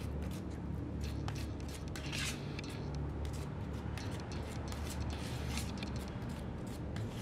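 Small spreader scraping and smearing body filler mixed with hardener on a metal mixing plate, in quick irregular strokes, over a low steady background rumble.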